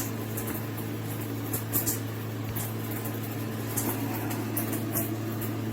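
Shower head spraying water, an even hiss with a steady low hum underneath.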